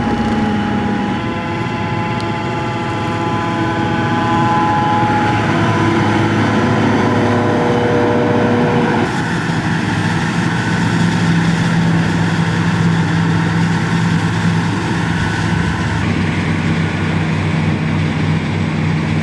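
Forage harvester running steadily while cutting corn, a heavy machine's engine over the noise of the crop being chopped. The sound changes abruptly about nine seconds in.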